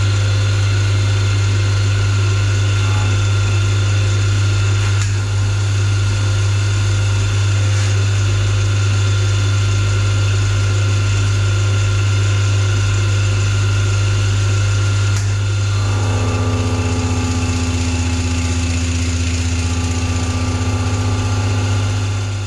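Milling machine running steadily while machining a V8 cylinder head, with a strong low motor hum. About sixteen seconds in, a new higher steady tone joins the hum.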